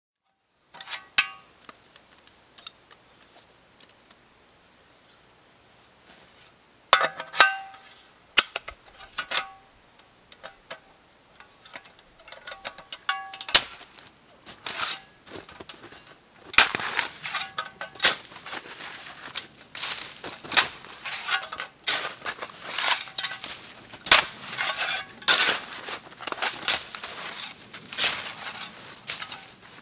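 A small shovel digging into crusty, re-frozen snow: repeated sharp scrapes and crunches of the blade, coming thick and fast from about halfway on. Before that come scattered clicks and knocks of gear being handled.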